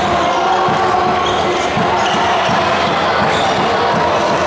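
Basketball being dribbled on a gymnasium court, repeated thuds under a steady din of voices from the crowd in the hall, with short high squeaks scattered through it.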